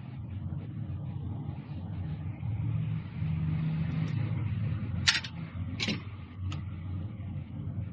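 Engine running steadily with a low hum, and a few sharp clicks about five to six and a half seconds in.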